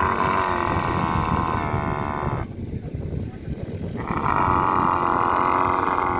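A dromedary camel making two long, drawn-out calls. The first ends about two and a half seconds in, and the second starts about four seconds in.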